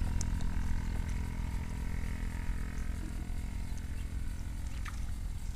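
Wind rumbling on the microphone, a steady low buffeting with a couple of faint light clicks.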